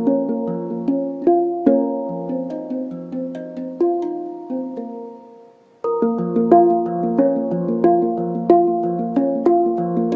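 Harmonic Sound handpan tuned to B flat minor, played by hand in a run of struck, ringing notes. The notes die away almost to nothing about halfway through, then playing resumes with a sudden loud stroke.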